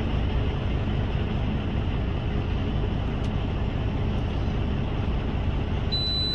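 Coaster commuter train passing, a steady low rumble from its diesel locomotive and wheels on the rails.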